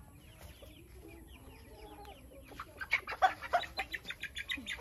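Young Rhode Island Red chickens clucking softly. Then, about two and a half seconds in, a quick run of loud squawks as one chicken is grabbed by hand.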